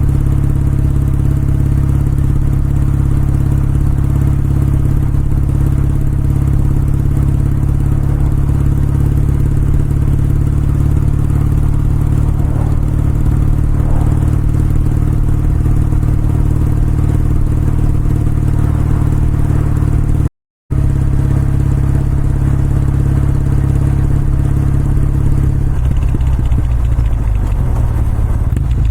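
Kawasaki W650's air-cooled parallel-twin engine and exhaust running at a steady cruising pace while the motorcycle is ridden. The sound drops out for a split second about twenty seconds in, and the engine note changes near the end.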